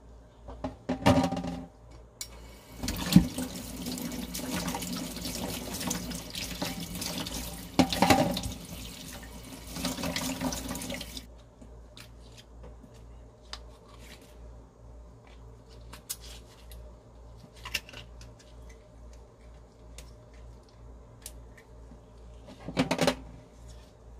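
Tap water running into a stainless steel kitchen sink while abalone are rinsed by hand, stopping about eleven seconds in. Then faint clicks and scrapes of the abalone shells being handled, with another brief burst of noise near the end.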